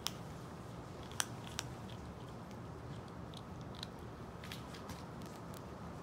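Kitten crunching dry cat kibble: scattered sharp crunches, a few each second, over a steady low hum.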